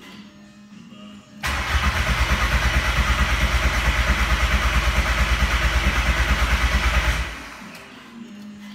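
Straight-piped, big-turbo VW Jetta TDI diesel engine idling at the tailpipe, then revved abruptly about a second and a half in and held at high revs for about six seconds with a fast, even exhaust pulse. It then drops back to idle.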